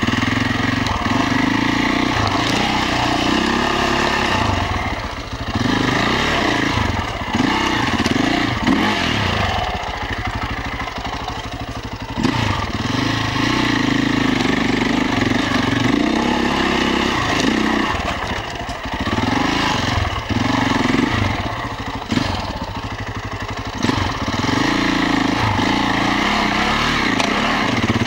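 Beta RR 525 enduro motorcycle's single-cylinder four-stroke engine, heard from a camera mounted on the bike, its revs rising and falling again and again as the throttle is opened and closed.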